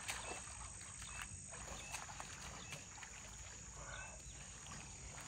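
Dry twigs and leaf litter crackling under footsteps as a person moves into scrub brush, with scattered short snaps, over a steady high insect drone.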